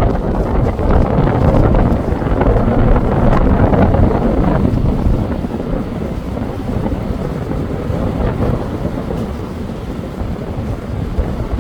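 Wind buffeting the microphone in a loud, uneven low rumble that eases a little about halfway through.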